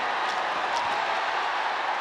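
Steady crowd noise in a fight arena, an even din of many voices, with a couple of faint sharp taps in the first second.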